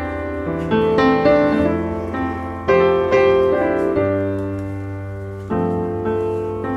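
Background piano music: slow chords struck every second or two and left to fade, over held bass notes.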